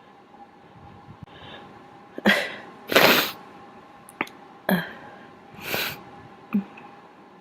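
A person sneezing twice, each sneeze a short voiced intake followed by a loud, noisy blast. The first blast, about three seconds in, is the louder.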